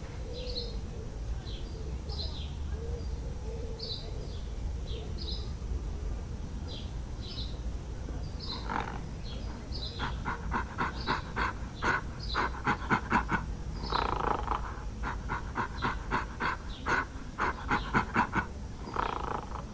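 Small birds chirping over a steady low rumble. From about halfway, an animal gives loud, rapid pulsed calls in repeated bursts, each burst lasting about a second.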